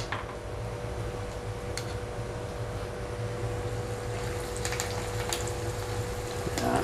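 Oil sizzling in a frying pan as small anchovy fritters in batter fry, with a few light clicks of a spoon against the bowl or pan near the middle and end, over a faint steady hum.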